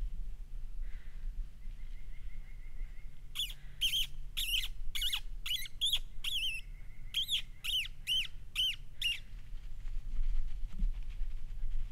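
Mouse-distress squeaks made with the lips: a quick series of about a dozen sharp, high squeaks, roughly two a second, each rising then falling in pitch, with a short break midway.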